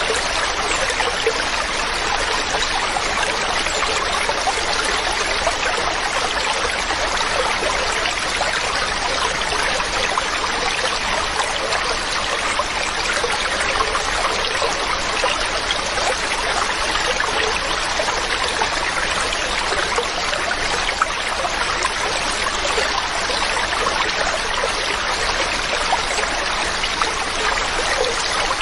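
Mountain stream running steadily over rocks, an even rushing and trickling with no change.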